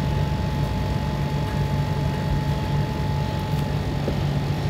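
Steady low hum with a thin, steady high tone over an even hiss: constant room background noise.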